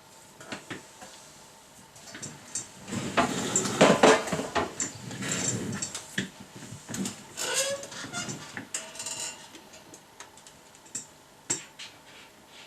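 Tools and small metal parts being handled: a run of clinks, knocks and rattles, busiest from about three to six seconds in, then thinning to occasional clicks.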